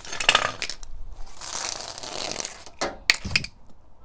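Clicks, a scraping rasp and a few sharp metal knocks as a van's side step assembly is worked and tried in its mounting.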